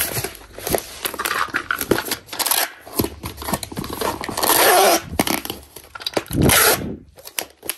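Packing tape pulled off a handheld tape dispenser gun and run across a cardboard box, in several rasping strips, the longest about four seconds in. Light taps and rustles of the box flaps being pressed shut come first.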